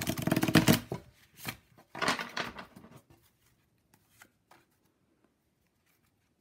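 A Lo Scarabeo tarot deck being riffle-shuffled on a table: a fast, dense run of card flicks as the two halves interleave, then a second shorter burst about two seconds in, followed by a few light clicks as the deck is gathered and squared.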